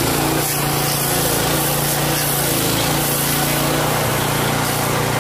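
A 13 hp stump grinder's engine running steadily while its toothed cutting wheel grinds into a tree stump: a constant engine drone under the noise of wood being chewed into chips.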